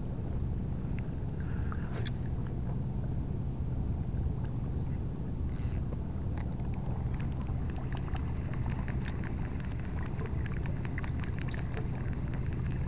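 Steady low drone of a boat engine running in the harbour. From about six seconds in it is joined by a rapid run of light clicks from a spinning reel being cranked.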